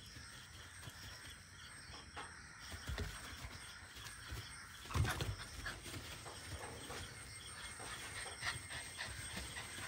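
Puppy playing with a small stuffed toy: faint panting and soft scuffling, with one sharper knock about five seconds in.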